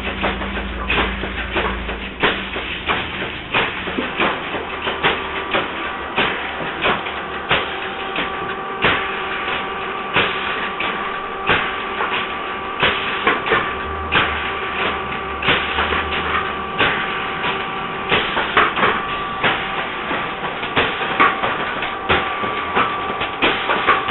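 Scrap-metal robot dancer in motion, its hose-fed actuators and metal joints clacking and knocking in an uneven rhythm, with a steady humming tone underneath from about five seconds in.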